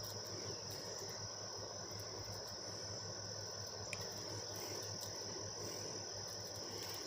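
Faint steady high-pitched cricket trill over a low hum, with a single faint click about four seconds in.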